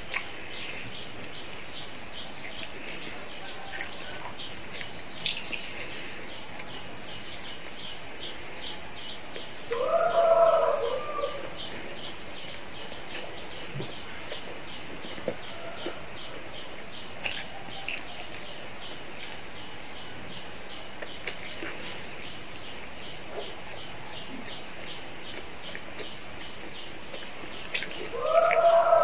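Background birdsong: a fast high chirp repeating about three times a second, with two louder, lower calls about a second long, one near ten seconds in and one at the very end.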